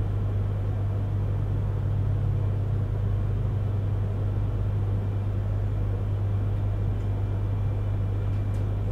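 Steady low hum and rumble inside a Yamagata Shinkansen Tsubasa passenger car as the train rolls slowly into its terminal platform.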